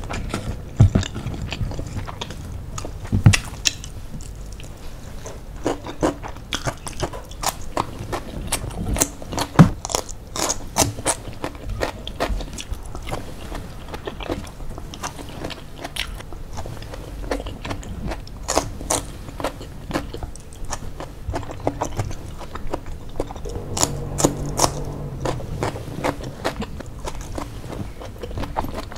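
Close-miked eating: chewing and crunching of crispy fried chicken crumbs and fresh vegetables, with many short, sharp crunches scattered irregularly throughout.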